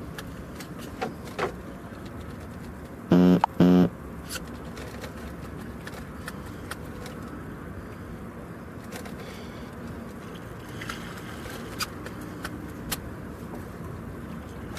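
Two short, loud honks of a horn about three seconds in, each a steady, unchanging tone, over a steady rushing background with scattered light clicks.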